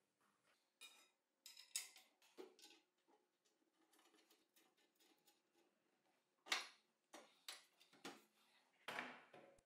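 Near silence with a few faint, scattered clicks and taps of metal parts being handled: an aluminium angle bracket being bolted to the edge of a cast-iron table saw top.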